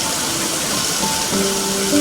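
Steady rain hiss under soft, slow instrumental music; held notes in the music grow fuller about a second and a half in.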